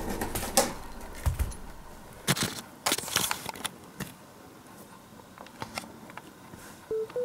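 Scattered small clicks, taps and rustles, with a short low thump about a second in and a cluster of clicks between two and three seconds in. A synth music melody starts near the end.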